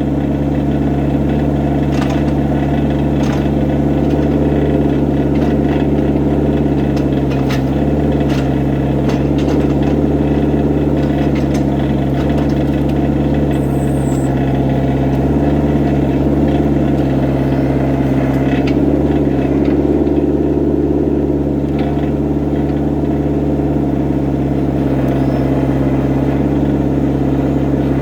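Excavator's diesel engine running steadily at a constant pitch, with a few short knocks and clanks from the machine at work.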